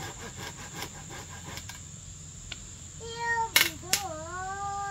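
Two sharp knocks about a third of a second apart as bamboo poles are handled. A high voice calls out just before the knocks and again, drawn out, after them. A steady high insect drone runs throughout.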